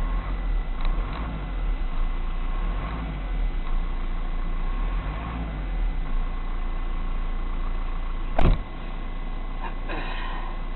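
A steady low vehicle hum recorded by a car dashcam, broken about eight seconds in by one sharp, very loud blast: an artillery shell exploding. A brief rattling noise follows near the end.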